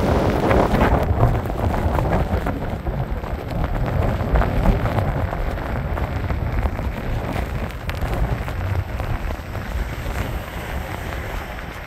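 Storm-force wind buffeting the phone's microphone, over a steady wash of rain and surf, with many small ticks of raindrops striking the phone.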